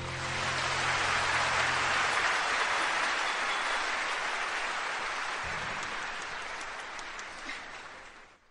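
Applause at the end of a song, a dense patter that slowly fades away, while the song's last low notes die out in the first two seconds.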